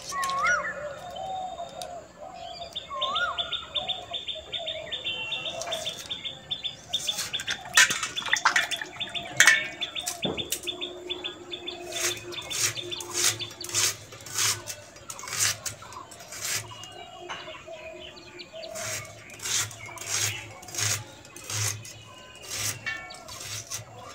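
Birds chirping and calling, with a run of sharp clicks and knocks from about seven seconds in and a low pulsing sound in the second half.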